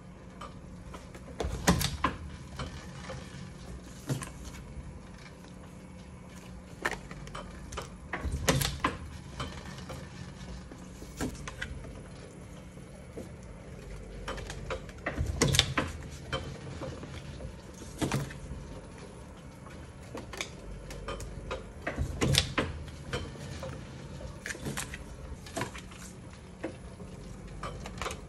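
Chandler & Price platen letterpress running through its print cycle: a steady low hum under a sharp mechanical clack about every three and a half seconds, every other clack louder.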